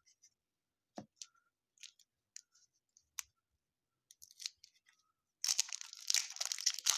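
Faint taps and clicks of trading cards being handled, then, about five and a half seconds in, loud, continuous crinkling of a card pack's wrapper being torn open.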